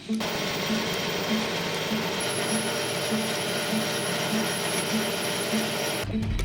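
A workshop machine tool runs steadily, a dense even noise that starts and cuts off abruptly, with soft background music pulsing underneath.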